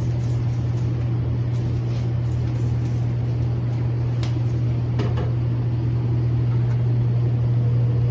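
Laminar-flow cell-culture hood's blower fan running with a steady low hum, with a few light taps from items being handled inside the cabinet.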